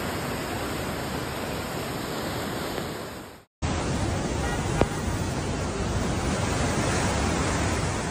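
Flash-flood torrent rushing, a steady, even noise of fast floodwater. It cuts out for a moment about three and a half seconds in and resumes, with one brief click about a second later.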